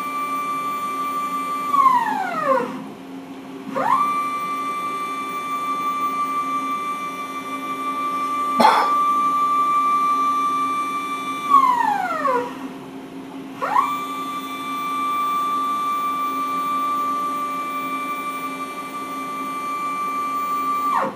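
Multicam MT22 CNC router's x-axis drive moving the vacuum table through its full travel: a steady whine that falls in pitch as the table slows to a stop, then rises again as it starts back, twice. A single sharp click about halfway through.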